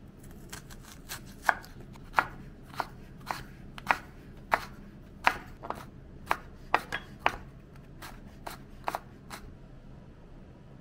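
Chef's knife chopping carrots on a bamboo cutting board: sharp, irregular knocks of the blade striking the board, roughly one or two a second, stopping near the end.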